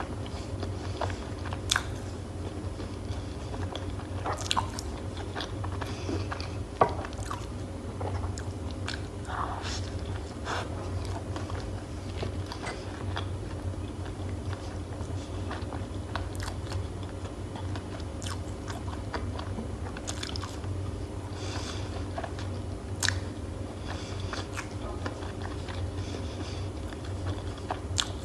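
Close-miked biting and crunchy chewing of crispy fried chicken food: a breaded chicken burger and sauce-dipped fried nuggets. Irregular crisp crackles and louder bites come through, the sharpest a few seconds in and again past the middle, over a steady low hum.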